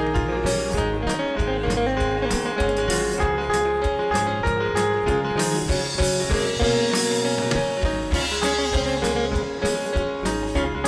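Gospel worship band music with a steady drum beat under sustained instrument notes, with cymbal washes a little past the middle.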